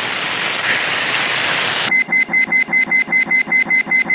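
A steady hiss of noise for about two seconds, then an electronic alarm starts beeping rapidly on one high pitch, about six beeps a second.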